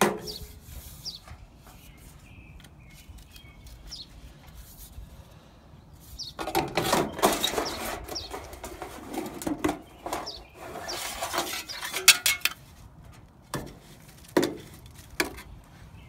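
A long metal strip scraping and rattling against the inside of a sheet-metal downspout as it is worked up the pipe. The scraping starts about six seconds in and lasts several seconds, then a few separate sharp metallic knocks follow near the end.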